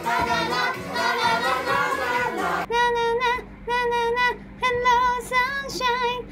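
Upbeat pop song with a high, childlike sung vocal. About two and a half seconds in, the busy melody gives way to a run of short repeated high notes.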